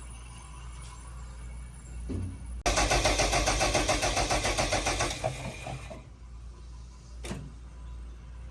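Starter motor cranking the Bomag BW212 D-3 roller's diesel engine in quick even pulses for about two and a half seconds, then stopping; the starter now turns the engine over after the won't-crank repair. A single click follows a couple of seconds later, over a low steady hum.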